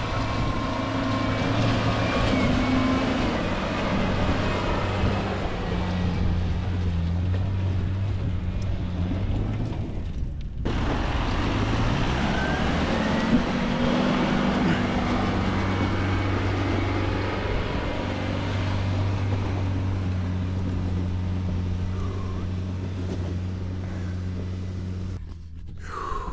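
Land Rover Discovery engine labouring in low gear up a steep loose-rock slope, its revs rising and falling as it climbs. The sound breaks off briefly about ten seconds in, then carries on.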